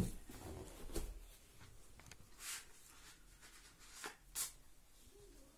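Faint handling sounds: a few short scrapes and light clicks as a knife is handled, the loudest about four seconds in.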